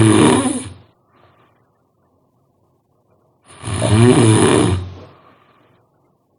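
A person snoring loudly in sleep. One snore dies away about a second in, and another full snore comes about three and a half seconds in and lasts about two seconds.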